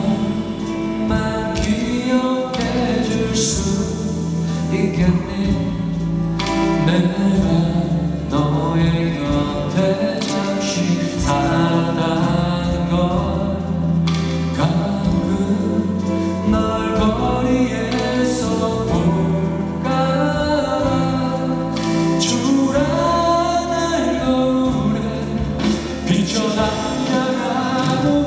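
A man singing a slow ballad live, accompanying himself on keyboard, with sustained low notes beneath the voice.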